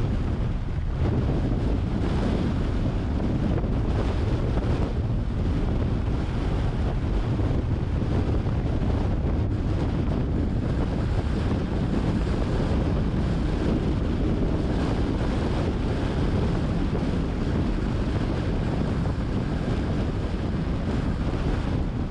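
Steady low wind rumble buffeting the microphone of a moving car, mixed with road noise.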